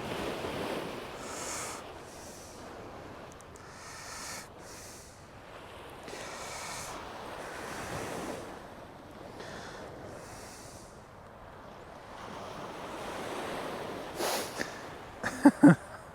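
Wind and water washing at the shore of the estuary wall, a noisy rush that rises and falls every second or two. A few short, sharp sounds come just before the end.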